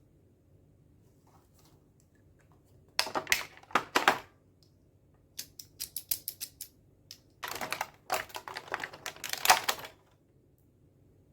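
Small hard plastic pieces clicking and rattling as they are handled, in three bursts: a short cluster, then a quick run of separate clicks, then a longer dense stretch.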